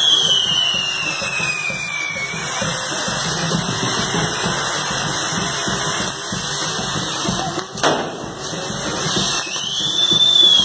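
A spinning firework wheel on a burning castillo, whistling shrilly: the whistle falls slowly in pitch at the start and rises again near the end, over a steady hiss. One sharp pop comes about eight seconds in.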